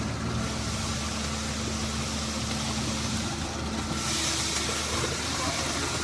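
Concrete mixer's engine running steadily at a constant speed, with a hiss over it that grows louder about two-thirds of the way through.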